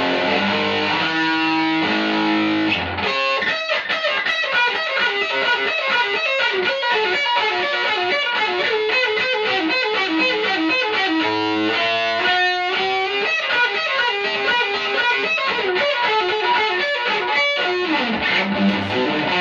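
Heavily distorted electric guitar, an Aria Pro Explorer-style, played through a home-built high-gain tube amplifier with 1930s AF7 and AL4 valves: a few held notes, then fast picked single-note runs. The amp goes too far into saturation and sounds like it is gasping for air, which the builder suspects comes from overdriving one of the valves.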